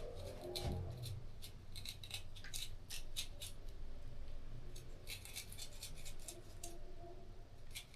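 Knife cutting through a horned melon (kiwano): a run of crisp, irregular clicks and taps, several a second.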